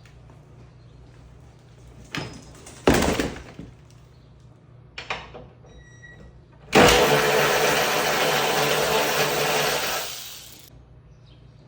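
A power tool driving the hood's mounting bolts. It runs in two short bursts, then runs steadily for about three seconds before winding down.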